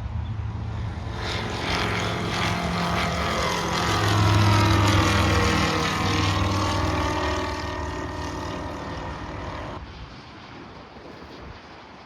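Sling 2 light aircraft's engine and propeller droning as it passes by, building to its loudest about four seconds in, then fading and cutting off near the end. The tone sweeps as it goes past.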